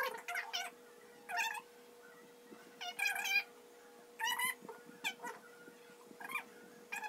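A cat meowing, a string of short, high calls about once a second.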